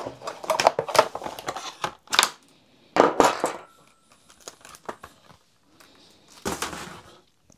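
Deli T-handle hex keys with steel shafts and plastic grips being taken out of their clear plastic case and set down on a wooden tabletop: uneven bursts of clicks, knocks and plastic rattling, with louder clatters about three seconds in and again near the end.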